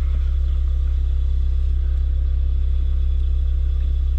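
Car engine idling: a steady, even low rumble.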